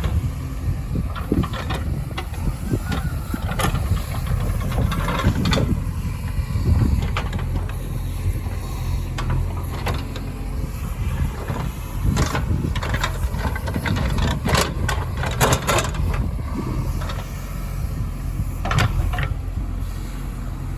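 Heavy diesel engine running steadily under load, with scattered metallic clanks and knocks, several in quick succession about two-thirds of the way through.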